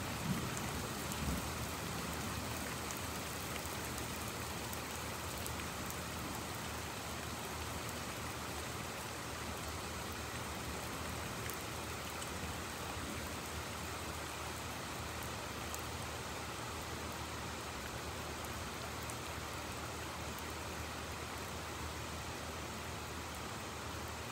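Heavy rain falling steadily, an even hiss of drops, with the last of a low thunder rumble dying away in the first second or two.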